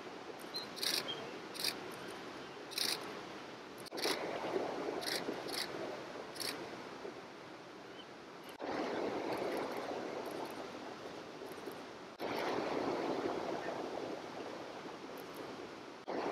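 Steady rush of flowing water, jumping abruptly in level a few times. Several sharp camera-shutter clicks fall in the first six or seven seconds, with a few fainter ones later.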